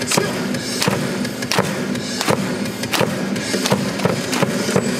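Stadium cheering: a loud, sharp beat lands about every 0.7 seconds, with lighter hits between, over cheer music with a repeating bass line.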